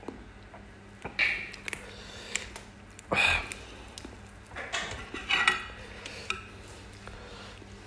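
Short clinks and scrapes of a metal spoon against a ceramic dish, with the soft rustle of fresh herb leaves being picked and rolled by hand. The louder scrapes come about three and five seconds in.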